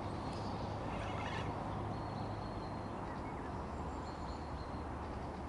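Steady outdoor rushing noise with a few faint, thin, high bird whistles over it.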